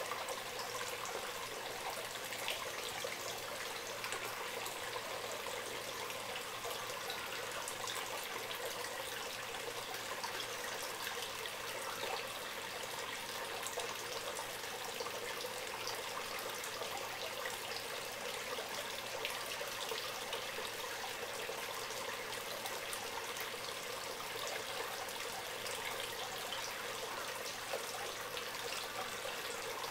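Small running water trickling steadily, with many tiny splashes.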